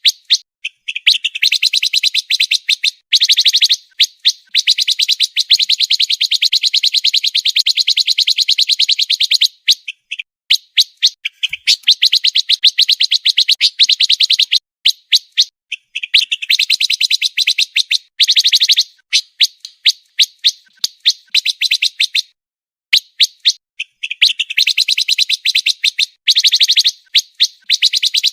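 Pancawarna songbird singing very fast, tightly packed trilling phrases, high-pitched rapid notes repeated many times a second in long bouts separated by brief pauses, a masteran song for tutoring contest birds.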